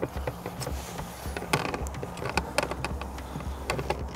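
Irregular clicking and ticking from a carp angler's reel and rod as he plays a hooked carp, over a low steady hum.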